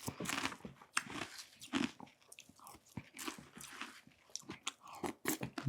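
A person chewing a spoonful of halo-halo close to the microphone: irregular, quiet wet chewing and crunching with many small clicks.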